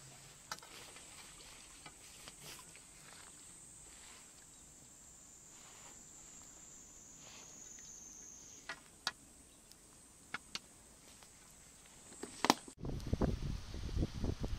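Faint outdoor ambience with a thin, steady, high-pitched insect drone and a few small clicks. Near the end, after a sudden cut, wind buffets the microphone in loud gusts.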